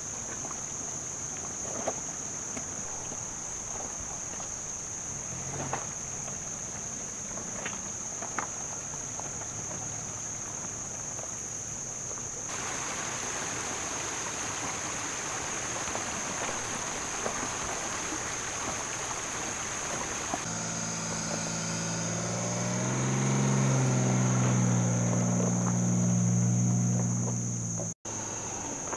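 A steady high-pitched insect buzz runs over the rushing water of a rocky stream, with a few sharp clicks in the first third. About two-thirds of the way in, the BMW X5 xDrive30d's 3.0-litre straight-six diesel comes in low and grows louder as the SUV works over the stream's rocks. The sound cuts out for a moment near the end.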